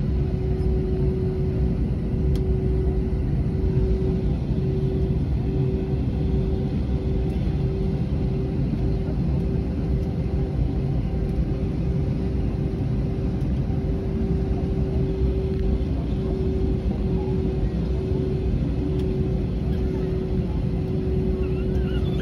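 Cabin noise of an Airbus A321 taxiing: a steady low rumble from the engines and the wheels on the ground, with a continuous droning tone above it that wavers at times.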